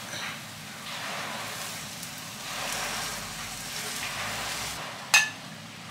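Egg and cabbage omelette sizzling in a non-stick frying pan while a spatula scoops pieces out, with one sharp knock about five seconds in.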